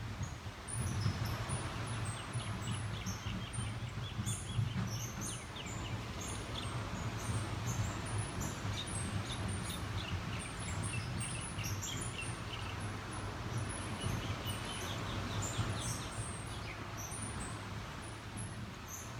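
Small birds chirping repeatedly in short, quick runs over a steady low rumble of outdoor ambience.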